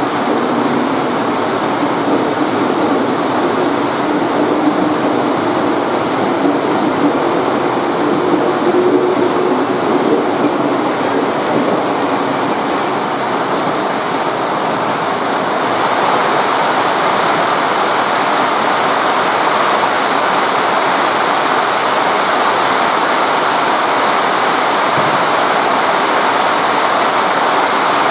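Very heavy rain pouring down in a steady hiss that grows stronger about halfway through. Underneath it, during the first ten seconds or so, a departing electric commuter train hums, its pitch rising slightly.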